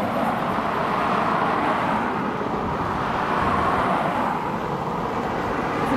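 Road traffic: cars and a van driving past close by, a steady rush of tyre and engine noise that swells slightly as each vehicle goes by.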